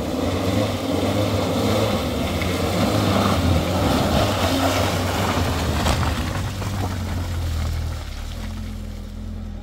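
Peugeot 405 sedan's engine running at raised revs as the car drives slowly through mud, a steady low drone with a broad rushing noise over it that eases off near the end.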